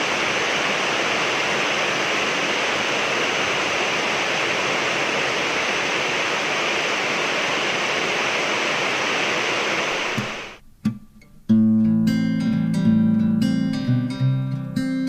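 Steady rain hiss for about ten seconds that cuts off suddenly. About a second later acoustic guitar music begins.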